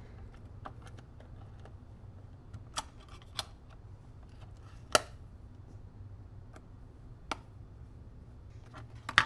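A handful of sharp plastic clicks and taps, spread out with the loudest about five seconds in, from the back cover of a handheld digital multimeter being handled and pressed into place.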